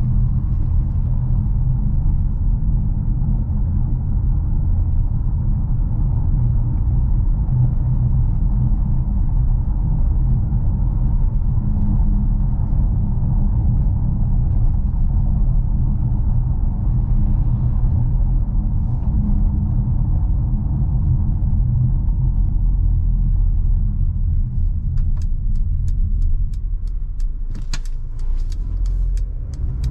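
A 2021 Mercedes GLA with its 1.3-litre turbocharged four-cylinder, driving: a steady low rumble of engine and road noise. A series of sharp clicks comes near the end.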